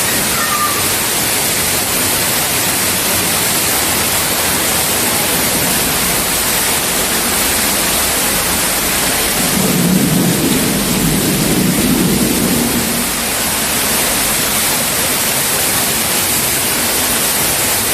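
Waterfall water pouring and splashing as a loud, steady rush, with a heavier low rumble for a few seconds in the middle.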